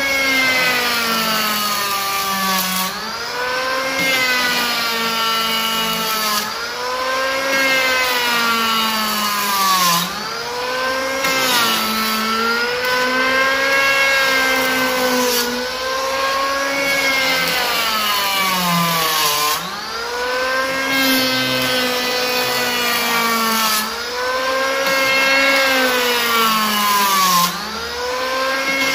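Makita N1900B 82 mm electric power planer with its cutter drum whining at high speed as it shaves a wooden beam in repeated passes. The motor pitch dips and recovers with each pass, about every three to four seconds, as the blades bite into the wood and come free.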